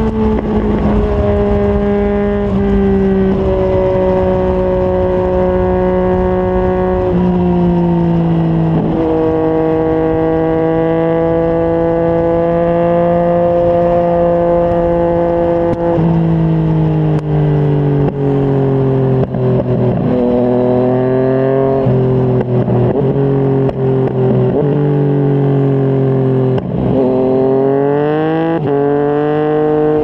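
Yamaha MT-09's three-cylinder engine through a Yoshimura R55 slip-on exhaust, running at highway speed. Its pitch steps and eases lower as the bike slows, with several short dips in the second half, then rises again near the end. A low wind rumble sits under it.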